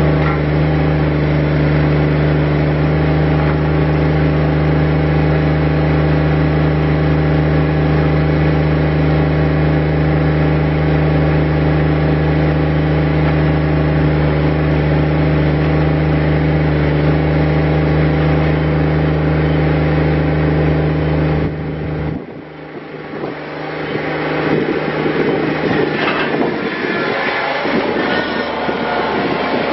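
Kubota BX25DLB tractor's small three-cylinder diesel engine running at a steady speed. About two-thirds of the way through the sound drops away suddenly, and a rougher running sound with clattering takes over.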